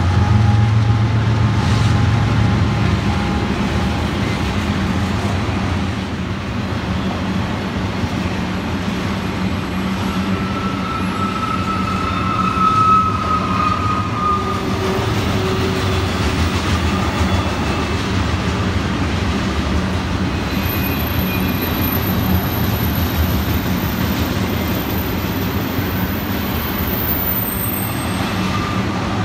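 Diesel freight train passing: the locomotives' low rumble is loudest in the first few seconds and eases off, then the steady rolling noise of double-stack intermodal well cars goes on, with a few brief faint squeals from the wheels.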